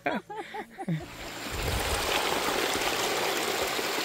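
A voice for the first second, then a steady, even rushing noise that holds from about a second in.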